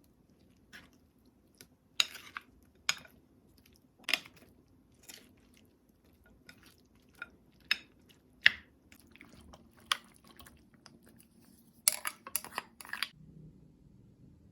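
Kitchen prep sounds: a string of sharp clinks and knocks of utensils against dishes, irregularly spaced about a second apart, with a quick run of taps near the end.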